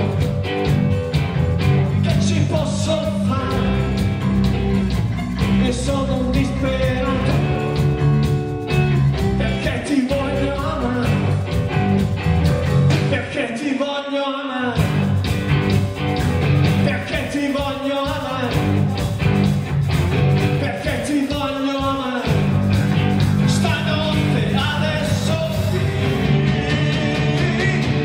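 Live rock band playing: electric guitars, bass guitar and drum kit, with a male lead vocalist singing over them. The bass and drums drop out briefly about fourteen seconds in.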